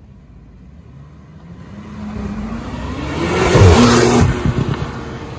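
Porsche 911 Turbo's twin-turbo flat-six accelerating hard toward and past: the engine note climbs in pitch as it approaches, is loudest about four seconds in as it goes by, then fades.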